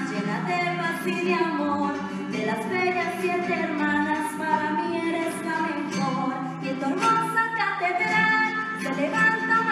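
A woman singing a Costa Rican folk song with a live acoustic ensemble playing along.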